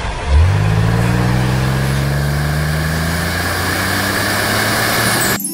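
Car engine sound effect revving up for a wheelspin. Its pitch climbs over the first couple of seconds, then holds steady with a hiss over it, and cuts off suddenly near the end.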